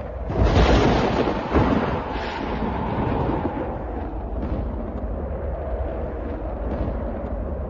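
A thunderclap: a sudden loud crack about half a second in, a second jolt a second later, then a long deep rumble rolling on.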